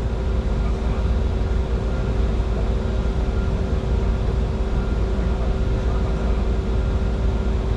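Steady cockpit noise of a Bombardier Challenger 605 in flight: an even rush of air over a deep low rumble, with a few constant hums running through it.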